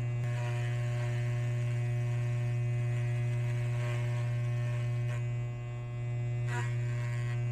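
Electric hair clipper running with a steady low buzzing hum while its blade is worked through a thick pigtail of hair, with a couple of brief ticks near the end.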